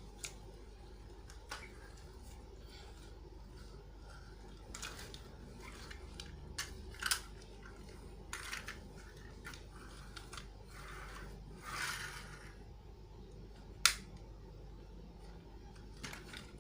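Plastic clicks and snaps of a Robocar Poli Roy transforming toy as its parts are folded from robot into car, with a few short rustles in between; one sharp snap near the end is the loudest.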